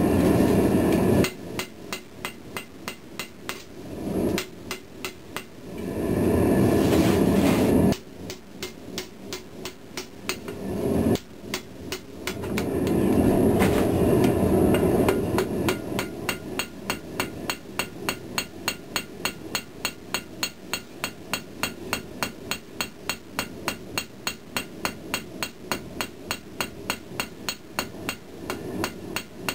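Ball-peen hammer striking a hot pattern-welded steel knife blade on an anvil in quick, even blows, about three a second, while the blade is forged to shape. A loud, steady rushing noise rises and falls three times, covering the blows for a few seconds each time.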